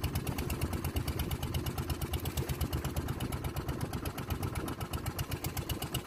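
Boat engine running steadily, with a fast, even chugging beat.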